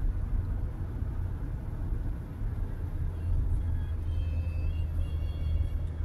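Steady low rumble of a Toyota car driving, engine and road noise heard from inside the cabin. Faint music comes in over it from about halfway.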